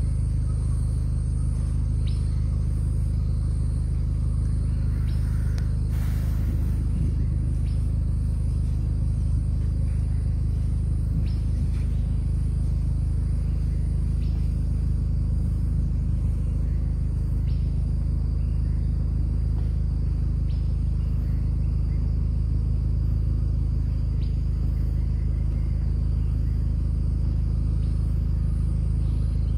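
A vehicle's engine running steadily at low revs: a constant low rumble and hum with no change in pitch.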